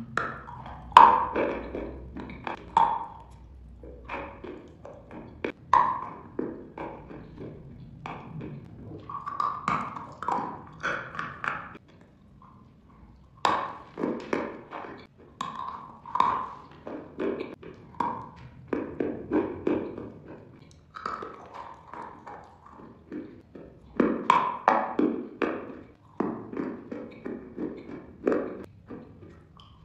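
Close-miked chewing of hard, crunchy food: crisp crunches come in irregular clusters, with a short lull about halfway.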